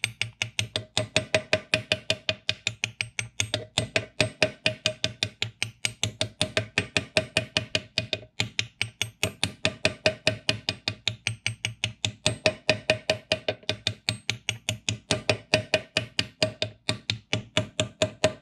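Rapid, steady hammer taps, about five a second, each with a short metallic ring, driving a new front bearing race cup evenly into a Tremec 3550 TKO transmission case until it seats.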